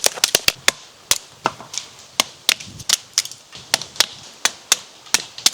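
Knife chopping into a tough branch of firewood: a run of sharp, irregular knocks, about three a second.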